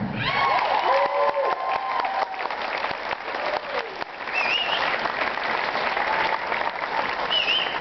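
Audience applauding and cheering: dense clapping with whoops and shouts over it, just as a big band's number has ended.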